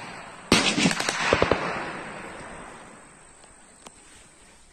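Rifle fire: one sharp shot about half a second in, then a quick cluster of further shots, the reports rolling away and fading over the next couple of seconds. One faint distant crack near the end.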